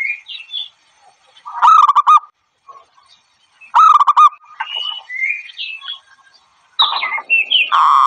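Zebra dove calls, as used for lure playback: three bursts of rapid staccato cooing notes, the last near the end the longest and loudest. Between the bursts come short, thinner rising chirps.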